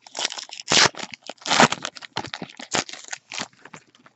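A trading-card pack's foil wrapper being torn open and crinkled by hand: a run of crackling rustles, loudest in two bursts about a second apart.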